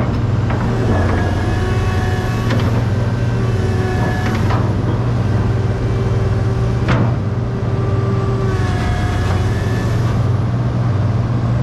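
Komatsu PC800-7 hydraulic excavator working: its six-cylinder turbo-diesel engine runs under load with a steady low hum, while the hydraulics whine in tones that come and go as the boom and arm move and the bucket is lowered. A few sharp knocks, the strongest about seven seconds in.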